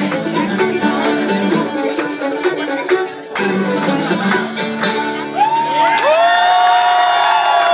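Bluegrass hoedown on fiddle, acoustic guitar and mandolin, the tune ending about five seconds in. The audience then breaks into cheering, with long whooping calls that rise, hold and fall away.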